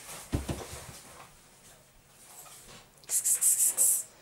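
A cat landing on a wooden table with a dull thump, then near the end about a second of rapid hissing, rustling bursts.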